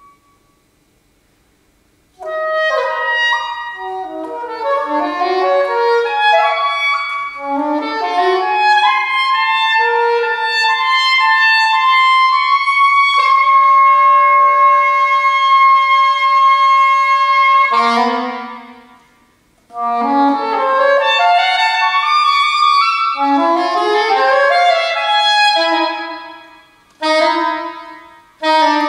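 Solo saxophone playing contemporary classical music. After about two seconds of silence come fast runs of notes, then a long held note, a short break, and more quick flurries broken by brief pauses.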